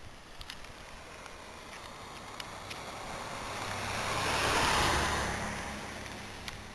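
A vehicle driving past on a slushy, snow-covered road: the hiss of its tyres through the slush swells to a peak about two-thirds of the way through, then fades as it moves away, over a steady low engine hum.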